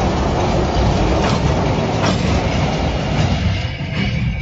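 Narrow-gauge diesel locomotive rolling slowly past close by, its engine running and its wheels clicking over the rail joints. The sound eases off near the end as it moves on.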